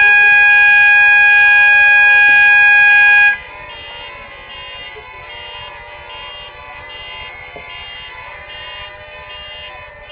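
Fire alarm horn sounding one loud, steady tone that cuts off suddenly about three seconds in. A fainter high beeping, about one and a half beeps a second, goes on under it and keeps going after it stops.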